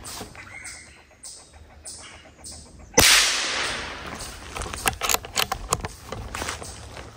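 A single .22 LR rifle shot: one sharp crack about three seconds in that dies away over a second or so, followed by a few sharp clicks.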